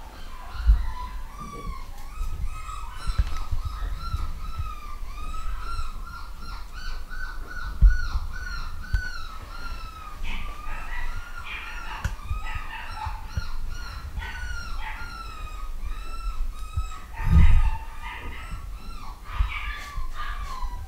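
Fox terrier puppy whining in a steady run of short, high whimpers, several a second, with a few low thumps, the loudest near the end.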